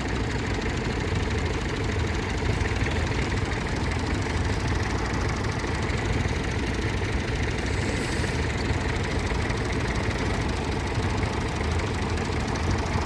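Tractor engine running steadily at a low, even idle.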